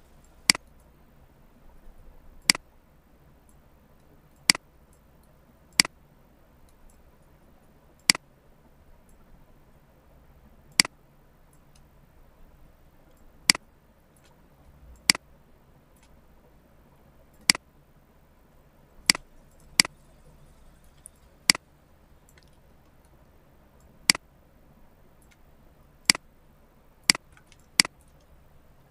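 Computer mouse clicking: single sharp clicks at irregular gaps of one to three seconds, about sixteen in all, over a faint low hum.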